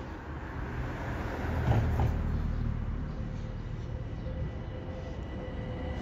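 Low rumble of a large vehicle passing, swelling to its loudest about two seconds in, then holding steady.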